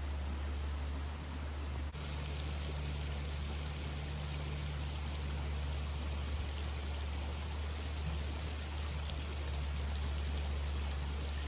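Steady rushing of creek water running through a flood-damaged rocky channel, an even hiss with a constant low rumble beneath, stepping up slightly about two seconds in.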